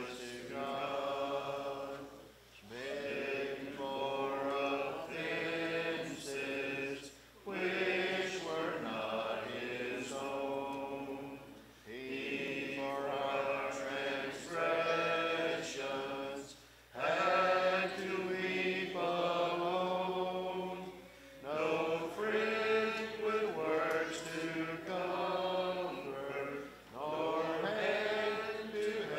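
Church congregation singing a slow hymn a cappella, in phrases a few seconds long with short pauses for breath between them.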